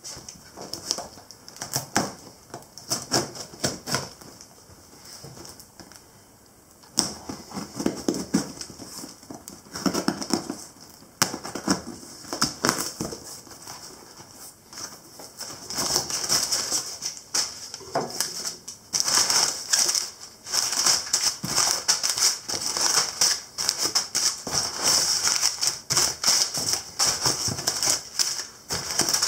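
A knife cutting the packing tape of a cardboard box, with tape tearing and cardboard flaps scraping and clicking. From about halfway in, crumpled packing paper crinkles and rustles loudly as it is pulled out of the box.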